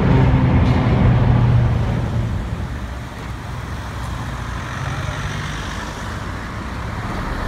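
Vintage M-24 tram running along street track: a loud low rumble with a steady hum while the cars pass close, easing off after about two seconds, then building again as the tram approaches.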